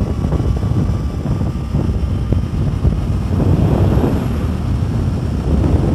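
Motorcycle riding at speed: wind rushing over the camera microphone on top of the Kawasaki Ninja 300's parallel-twin engine under throttle during an overtake, swelling briefly about halfway through.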